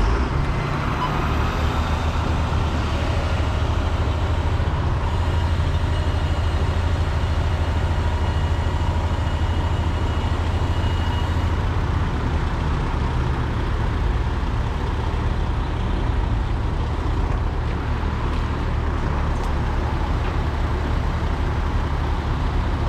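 Heavy truck engine idling steadily, with a low, even hum that grows a little stronger for about ten seconds in the first half.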